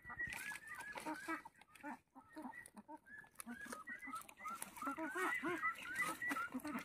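Chickens clucking: a steady run of short, repeated calls, several birds overlapping, growing busier in the second half.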